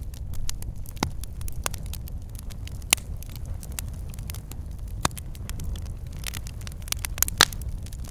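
Campfire burning with a low steady rumble and irregular sharp crackles and pops from the burning wood, one of the loudest pops a little after seven seconds in.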